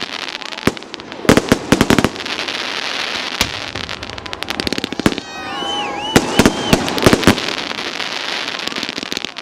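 Fireworks going off: rapid clusters of sharp bangs over a steady crackle, with whistles gliding up and down in pitch a little past halfway.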